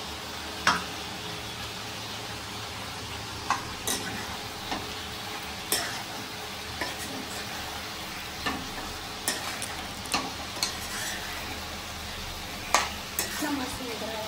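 Food frying in a pan with a steady sizzle while it is stirred with a spatula, the spatula knocking and scraping against the pan at irregular moments, about a dozen times.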